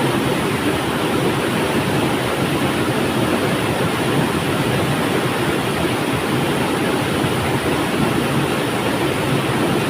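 Steady rushing of a flowing river, an even wash of water noise with no breaks or distinct splashes.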